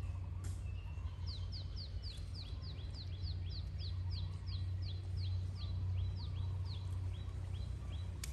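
A bird calling over and over in quick, short downward-sweeping chirps, about three a second, starting about a second in. A steady low rumble runs beneath it.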